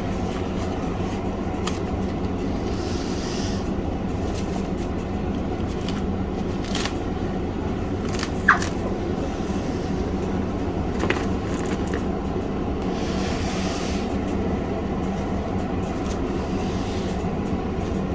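Steady low mechanical hum with a few faint clicks and a short high squeak about halfway through.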